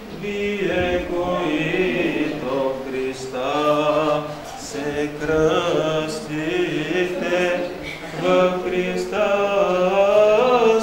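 Eastern Orthodox liturgical chant sung during a baptism service, in long held phrases with short breaks between them.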